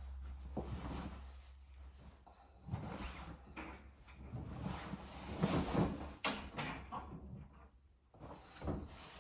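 Clothes being pulled out of a deep washing machine drum by hand and dropped into a laundry basket: rustling fabric with irregular knocks and bumps, the busiest handling about five to six seconds in, over a low hum in the first half.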